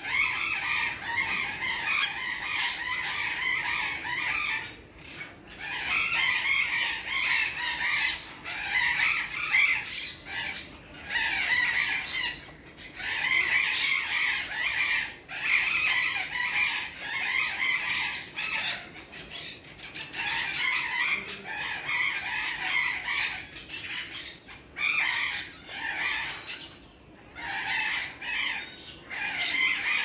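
Many parrots screeching and squawking at once, harsh calls overlapping almost without a break, with a few short lulls.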